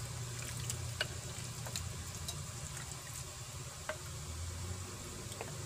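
Raw pork chunks sliding and dropping from a glass bowl into a ceramic mixing bowl as a wooden spatula pushes them along: faint wet slaps with a few light clicks, over a steady low hum.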